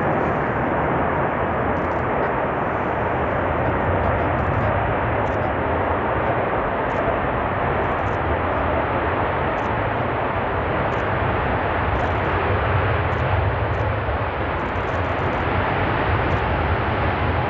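Jet engines of an Emirates Airbus A380 running at high power during its roll along the runway: a steady, unbroken jet noise that holds its level throughout.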